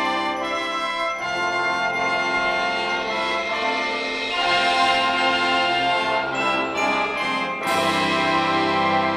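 Marching wind band playing sustained brass chords that change every second or so. A crash comes near the end, and deeper bass notes enter with it.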